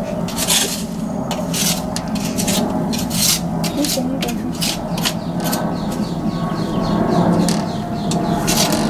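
Repeated rasping scrapes at an uneven pace, roughly twice a second, over a steady low hum.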